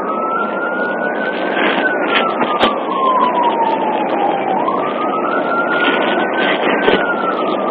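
Police siren on a slow wail, rising and falling in pitch twice, heard from inside the patrol car's back seat over steady road and engine noise, with a few brief knocks and rattles.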